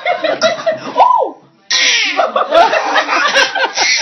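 A baby's high-pitched squeals and laughter mixed with a woman's laughing, breaking off briefly about a second and a half in, then starting again loudly.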